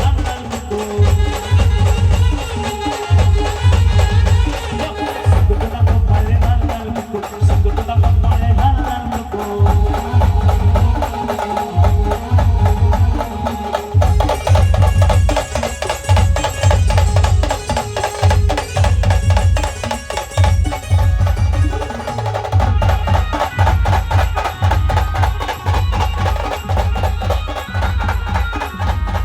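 Band music for dancing: a heavy, steady drum beat at about two strokes a second, with sharp percussion and a sustained melody line over it.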